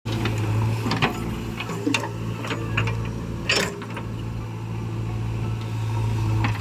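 Diesel engine of a backhoe loader running steadily while it works, with scattered clanks and knocks and a brief louder rushing burst about three and a half seconds in.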